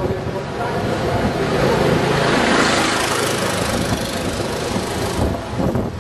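A motor vehicle passing close by: engine noise that swells to a peak a few seconds in, then falls away, over wind on the microphone.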